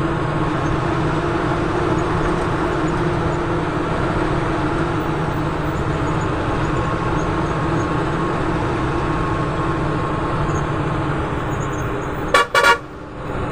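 Steady engine and road noise heard from inside a bus cabin, with two short, loud horn toots near the end.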